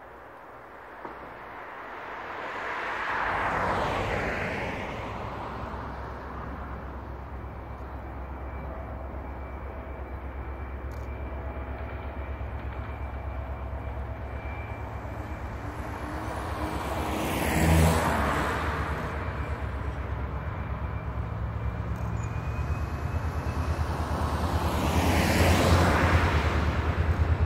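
Diesel locomotive hauling a passenger train approaches, its engine a low steady drone that grows louder toward the end. Three broad swells of passing road traffic come through, about 4 s in, about 18 s in and near the end.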